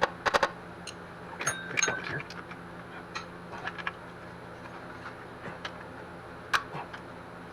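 Hand tools and metal engine parts clicking and clinking during disassembly. A quick cluster of sharp clicks comes at the start, a short metallic ring about a second and a half in, then scattered light taps, over a steady low hum.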